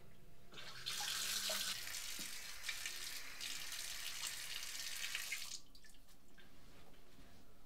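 Water running from a tap into a sink, turned on about a second in and shut off about five and a half seconds in.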